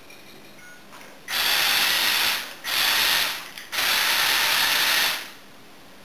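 Motors and gear train of a remote-controlled LEGO Technic tracked vehicle running in three bursts, the last the longest.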